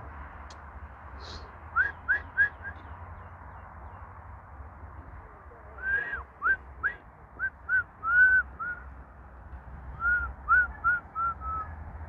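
Short, clear whistled notes, each rising and falling in pitch, in three runs: four quick notes about two seconds in, about seven from six seconds on with one longer held note, and about six near the end.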